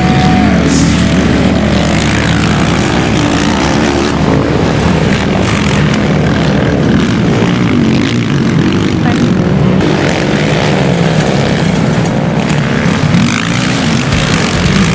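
Racing quad bike (ATV) engines at speed, the engine note rising and falling with the throttle.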